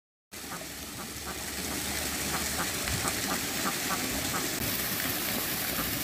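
A steady rushing hiss that slowly grows a little louder, with faint quick ticks about three times a second.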